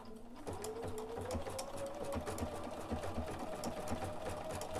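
BERNINA 770QE sewing machine stitching a decorative pattern: the motor whine climbs as it speeds up about half a second in, then holds steady under the fast clicking of the needle.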